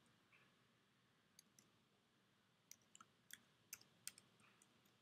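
Faint computer keyboard keystrokes: a scattering of light, short clicks, most of them in the second half, with near silence between.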